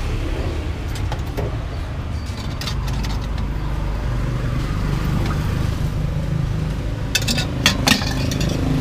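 Steady hum of road traffic going by. Near the end come a few sharp clinks of a metal ladle against stainless-steel pots and a ceramic bowl, the loudest sounds here.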